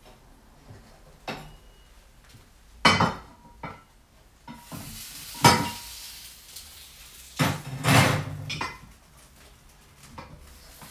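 The metal spit and wheel ends of a countertop rotisserie oven clank and knock as the hot chicken is lifted out of the oven and set down. There are several sharp strikes, the loudest about three and five and a half seconds in, then a cluster around eight seconds, with a few seconds of hiss in the middle.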